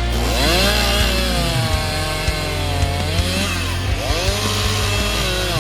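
Gas chainsaw revving as it cuts into a tree: its pitch climbs sharply as the throttle opens at the start, drops and wavers through the middle, and climbs again about four seconds in.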